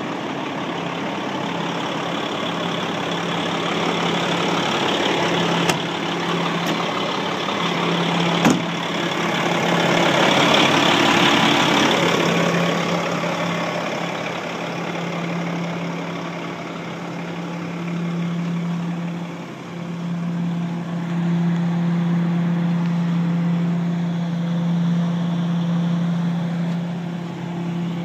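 2007 Condor garbage truck's engine idling with a steady hum, and a gust of noise swelling up about ten seconds in.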